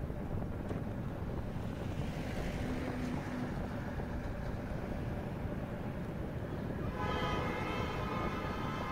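Steady road noise of a vehicle driving along a highway, tyres and engine running. About seven seconds in, a vehicle horn starts sounding, a long steady multi-tone note.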